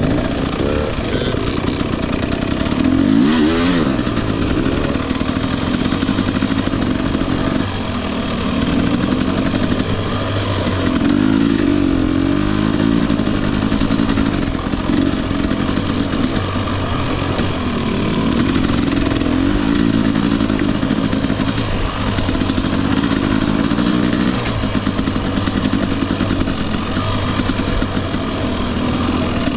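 A Husqvarna TE250i's single-cylinder two-stroke engine under way on a dirt bike, its pitch rising and falling again and again as the throttle is opened and rolled off.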